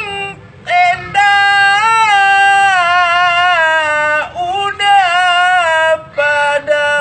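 A high solo voice chanting in Arabic in a melodic, melismatic style. It holds long, gently wavering notes in a few phrases, with short breaths in between.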